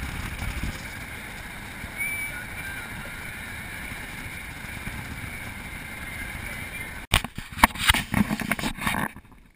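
Off-road vehicle running along a gravel track, heard as a steady rush of wind on the microphone over a low rumble. About seven seconds in the sound cuts abruptly to a louder stretch of irregular knocks and bursts, which stops shortly before the end.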